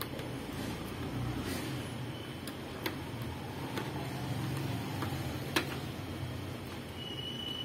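Small clicks and scrapes of a nano USB receiver being fumbled against a desktop computer's front USB port, with two sharper clicks about three seconds in and a little past the middle, over a steady low hum.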